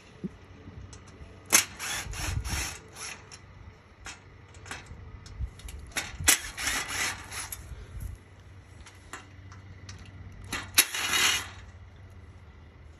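Cordless drill working screws out of the rails of an aluminum fence panel to free a picket. It runs in three short bursts, each starting with a sharp click, the last one near the end.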